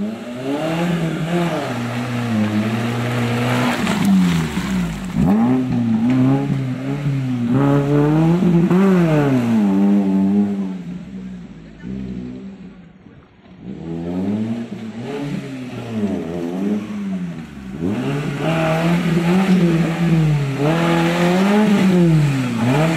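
Maruti Gypsy 4x4's engine revving hard in the mud, its pitch climbing and falling again and again with the throttle. It drops away for a couple of seconds about halfway through, then the revving picks up again.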